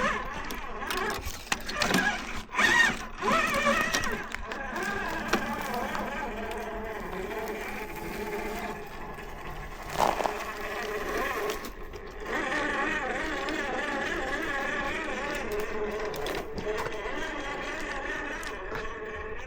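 Electric motor and drivetrain of an RC4WD Blazer scale rock crawler whining as it drives over rocks. The pitch rises and falls with the throttle. A few knocks come in the first three seconds and again about ten seconds in.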